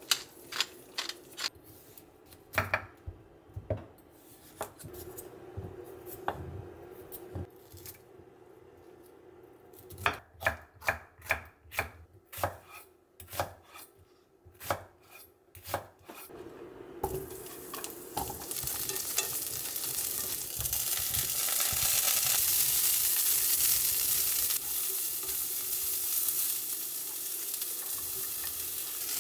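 Chef's knife chopping a red onion on a wooden cutting board, sharp knocks about two a second. A little past halfway, broccoli begins sizzling in a hot cast-iron skillet as it is stirred with chopsticks, the sizzle growing louder.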